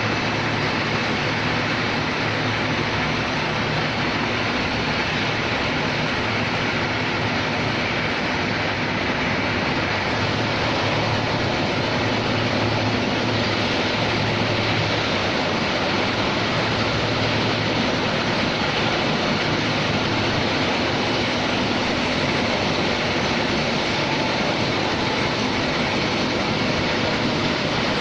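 Slitting and rewinding machine running steadily, dividing a wide roll of self-adhesive label stock into narrower rolls: an even mechanical whir with a low hum underneath, unchanging throughout.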